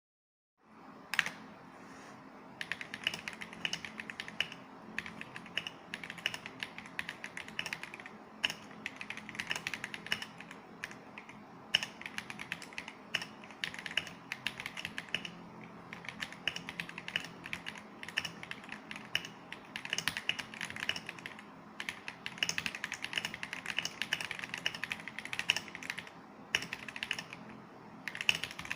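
Typing on an Akko ACR Pro 68 mechanical keyboard with stock, unlubed Akko crystal switches and factory-lubed stabilizers: fast runs of keystrokes in bursts with short pauses, and a single sharper strike about a second in.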